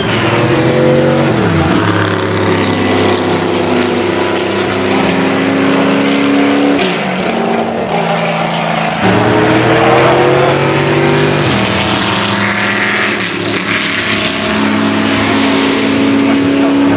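Racing car engines running hard on a circuit, several engine notes overlapping. Their pitch slides down and holds steady as the cars pass and change gear. The sound changes abruptly about nine seconds in.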